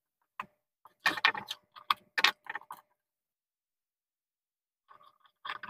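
Small metallic clicks and rattles of a screwdriver and copper wire being worked at a switchboard's terminal screws, a cluster in the first three seconds, then a pause and a few more near the end.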